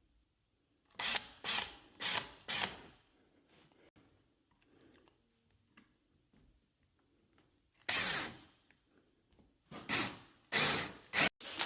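Cordless drill run in short bursts while fitting a door lock: four quick bursts about a second in, a few more near the end, and small clicks between them.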